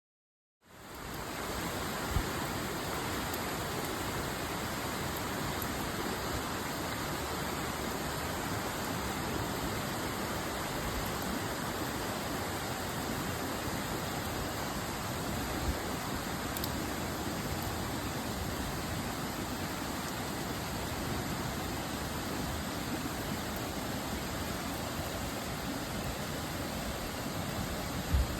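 Steady rushing of a stream's running water, with a faint knock about two seconds in and another near the middle.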